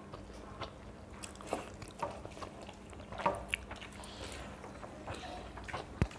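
Close-up eating sounds: people chewing and biting mouthfuls of water-soaked rice (panta bhat), with soft squishing as hands mix the wet rice and scattered small mouth clicks. A sharp click sounds about six seconds in.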